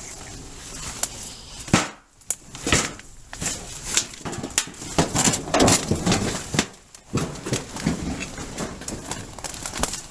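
Footsteps crunching and brush rustling through dry weeds and debris, with irregular cracks and snaps.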